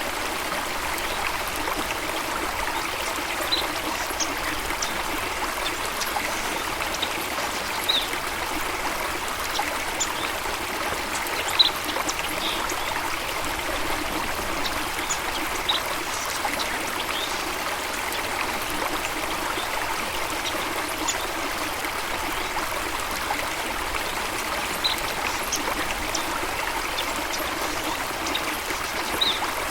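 Steady rush of running water, with short bird chirps scattered over it every few seconds.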